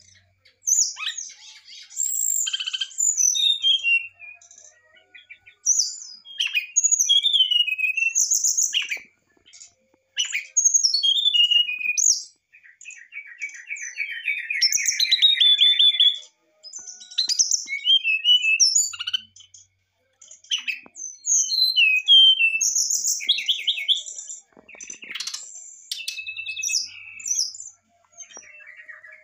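Brown-chested jungle flycatcher singing a varied song of clear fluting whistles and quick trills, in phrases of one to three seconds with short pauses between them, and one longer trill about halfway through.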